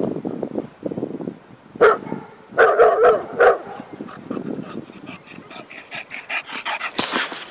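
A dog barking, four short barks between about two and three and a half seconds in. Rapid clicks and scuffing follow, with a loud burst of scuffling noise near the end.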